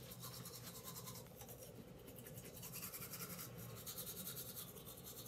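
Toothbrush scrubbing teeth in quick, rhythmic back-and-forth strokes, a faint steady scratching.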